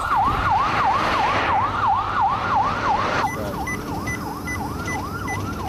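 Ambulance siren on a fast yelp, its pitch sweeping up and down about three times a second. About three seconds in it becomes quieter and a short high beep starts repeating alongside it.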